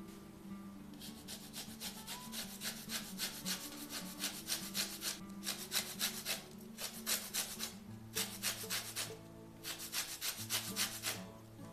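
Lemon peel grated on a small metal hand grater: quick rasping strokes, several a second, starting about a second in and coming in runs broken by short pauses.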